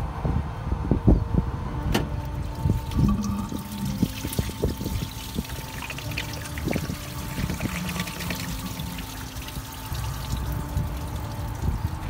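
Old coolant pouring and trickling steadily out of a Fiat 128's drained cooling system through a disconnected hose, with a few sharp clicks of tools in the first couple of seconds.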